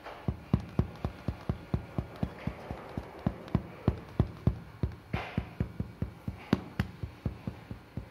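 Inflatable plastic cheering balloon stick thumping again and again against a cat's body, a steady run of thuds about four a second.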